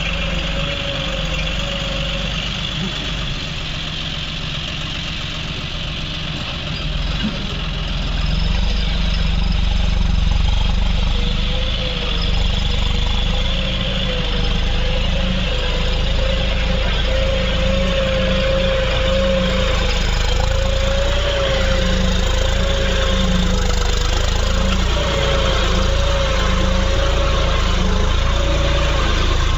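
Farm tractor's diesel engine running steadily under load while pulling a disc plough, with a low rumble and a slightly wavering hum; it grows louder about eight seconds in as the tractor draws nearer.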